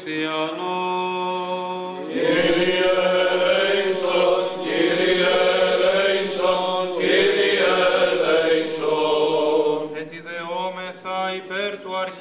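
Byzantine Orthodox chant sung over a steady held low drone note. A fuller, louder body of voices comes in about two seconds in and sings until about ten seconds in, after which a thinner line of chant carries on.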